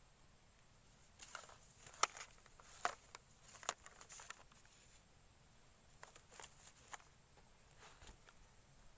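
Scattered sharp clicks and soft rustles as a small fish is pulled from a shallow pool on a pole rod and taken in hand. The clicks come thickest about one to four seconds in, with a softer cluster around six to seven seconds.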